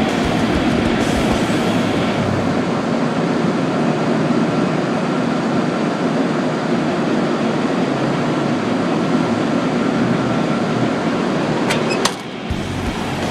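Steady, loud mechanical running noise of HVAC or boiler-room equipment. About twelve seconds in there is a sharp click, after which the noise drops.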